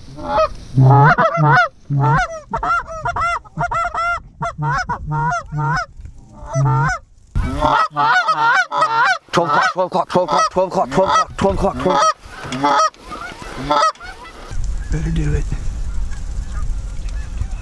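Canada goose calls blown rapidly in quick clucks and honks to bring an incoming flock of Canada geese into the decoys. The calling stops briefly about seven seconds in and thins out near the end.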